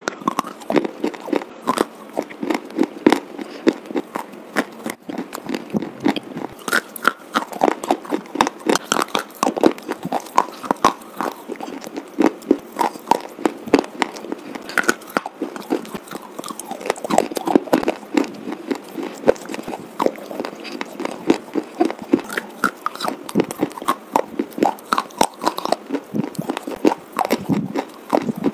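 Slate pencils being bitten and chewed: a steady run of short, dry crunches, several a second.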